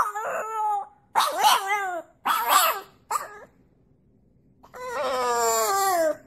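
French bulldog puppy howling and yowling: several short, wavering calls in quick succession, a pause, then one longer call that falls in pitch at the end.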